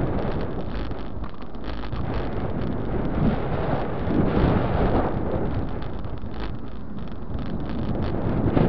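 Wind noise on a bike-mounted camera's microphone as a mountain bike rides along a tarmac road. It is a steady rushing that swells and eases every couple of seconds.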